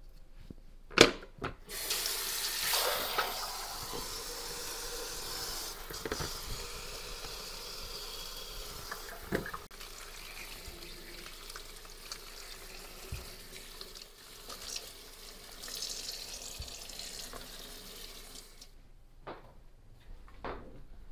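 Kitchen sink faucet running onto tomatoes in a metal colander as they are rinsed by hand. The water starts about two seconds in, just after a sharp knock, the loudest sound here, and cuts off near the end, followed by a few light knocks.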